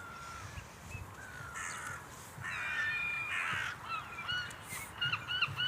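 Birds calling: a harsh, drawn-out caw about halfway through, then near the end a fast run of short, shrill arched calls, about four a second.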